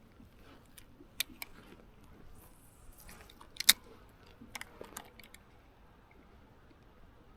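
A few short, sharp clicks and taps over a faint steady background. The loudest comes about three and a half seconds in, and a small cluster follows about a second later.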